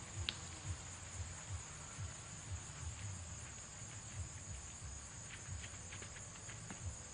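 Steady high-pitched insect chorus from the surrounding woods and grass, with an irregular low rumble underneath and a single sharp click shortly after the start.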